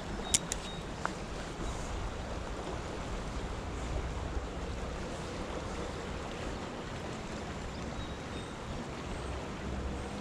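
Steady rush of a flowing creek, with a few sharp clicks about half a second in.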